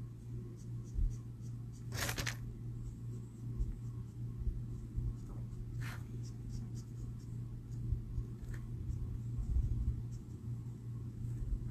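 Felt-tip colouring marker stroking on cardstock in short flicking strokes: many faint scratchy ticks, with a brief louder rustle about two seconds in. A steady low hum runs underneath.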